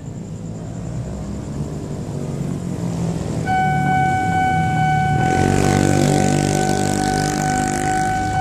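A rumble growing louder as something approaches, then a loud, steady horn note starting suddenly about halfway through and held without a break, with a rush of passing noise under it from a little later on.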